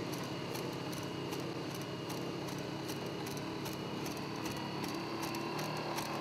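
Boston Dynamics LS3 legged robot walking: a steady engine drone with a thin high whine, overlaid by regular sharp clicks several times a second.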